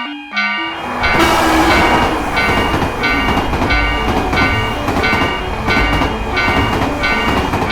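Train passing sound effect: a loud rushing rumble with clatter sets in about a second in. A chiming tone repeats evenly throughout, a little under twice a second.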